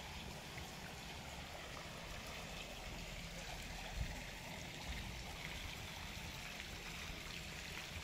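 Steady rush of running water, with a single faint knock about four seconds in.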